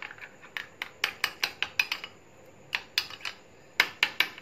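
A metal spoon clinking and tapping against a glass bowl while stirring a thick mayonnaise dip. The taps come quickly and irregularly, in short flurries.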